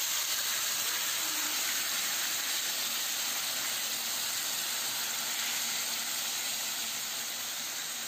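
Yogurt-marinated turkey pieces, just tipped into hot vegetable oil, sizzling steadily in a frying pan over high heat.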